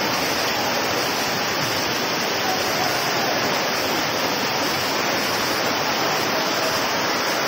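Floodwater rushing down a street in heavy rain: a steady, unbroken rush of water.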